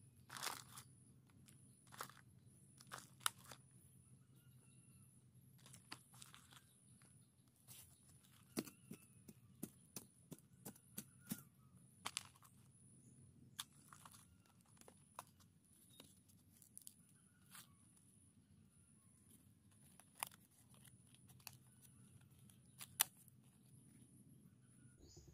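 Dry soil being scooped by hand and dropped into a cut-open plastic bottle: faint, irregular crunches and crackles of dirt and dry debris, with a few sharper clicks.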